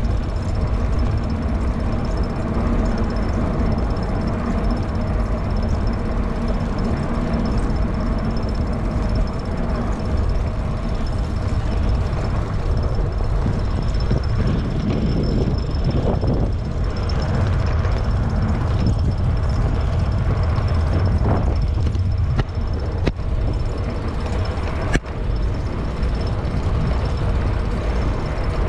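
Wind rumbling and buffeting over the microphone of a camera on a moving e-bike, with a faint steady high whine underneath and a couple of brief knocks near the end.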